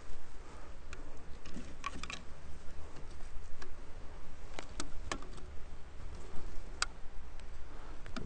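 Scattered light clicks and taps from handling a wooden hive frame and string while a piece of comb is tied into it, over a low steady rumble.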